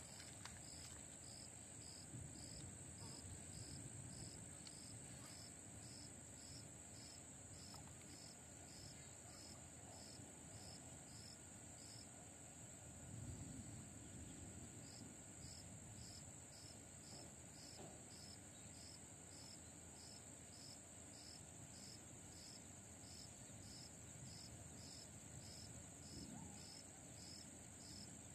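Faint insect chorus, likely crickets: a steady high-pitched buzz with a softer chirp pulsing about twice a second.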